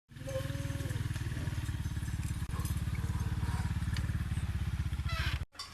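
A small engine running steadily with a fast, even pulsing, and a short rising call heard over it just before the sound cuts off suddenly.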